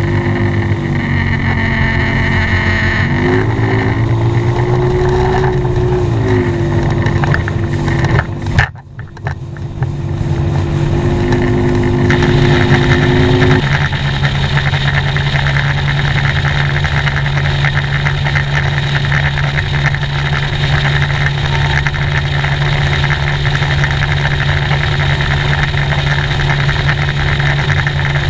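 Bass boat's outboard motor running under way, its pitch wavering a few seconds in. The sound dips sharply for a moment about nine seconds in, and from about fourteen seconds the outboard idles steadily.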